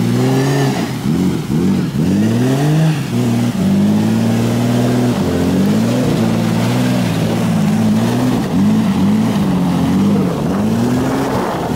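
A lifted 4x4's engine revving up and down over and over, the throttle pressed and eased about once or twice a second, as it crawls over icy rocks.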